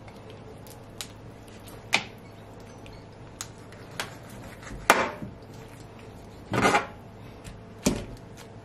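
Kitchen knife cutting up a raw whole chicken on a plastic cutting board: scattered single knocks of the blade against the board, about seven of them, with a short scraping noise about two-thirds of the way through.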